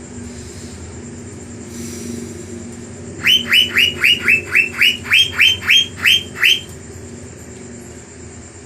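Asian fairy-bluebird (cucak biru) calling a rapid run of about a dozen whistled notes, each slurred downward, about four a second, starting about three seconds in and lasting some three seconds. A steady low background hum runs underneath.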